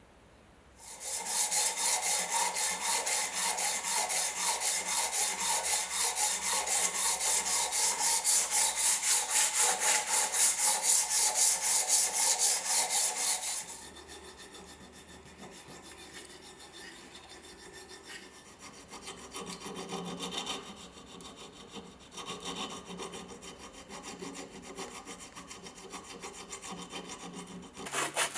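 Fast, even back-and-forth abrasive strokes on a filler-coated wooden piece, like hand sanding or filing. They stop about 13 seconds in and give way to quieter, uneven scraping as hardened filler is pared off with a small blade. The rapid sanding strokes start again at the very end.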